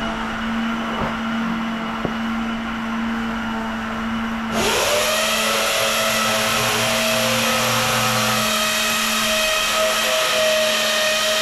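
A steady low hum, then about four and a half seconds in an electric drill starts up: its motor whine rises in pitch for about a second, then runs at a steady speed.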